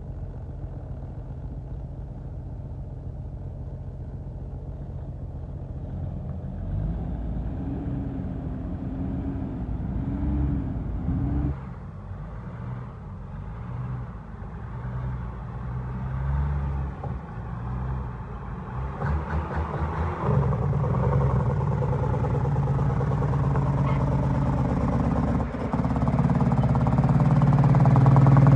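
Cummins diesel engine of a Freightliner FLD120 Classic dump truck pulling away and driving up close. Its revs rise and fall several times, and it grows louder toward the end as the truck draws alongside.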